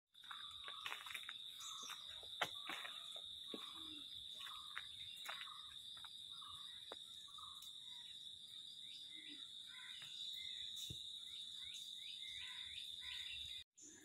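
Faint outdoor ambience: a steady high-pitched insect drone, with scattered short bird chirps and a few light clicks.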